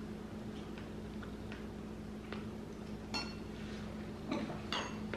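Metal spoon clinking against a cut-glass bowl, two ringing clinks about three seconds in and near the end, with faint spoon taps and scrapes between.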